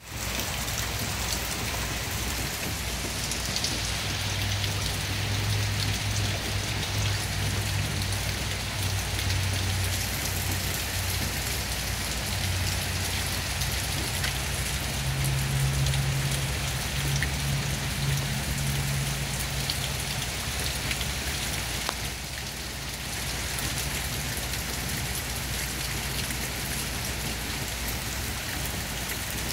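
Steady rain falling into a shallow puddle on pavement, the drops splashing on the water. A low hum comes and goes underneath.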